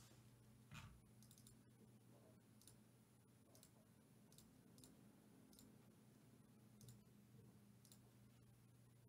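Near silence: room tone with a steady low hum and faint, scattered clicks, one slightly louder click about a second in.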